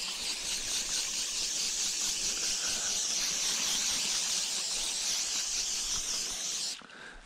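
Sawyer permethrin aerosol spray can hissing in one steady spray lasting nearly seven seconds, cutting off near the end.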